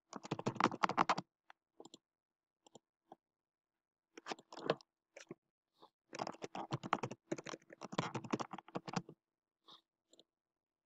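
Typing on a computer keyboard: quick runs of key clicks, with scattered single clicks between them.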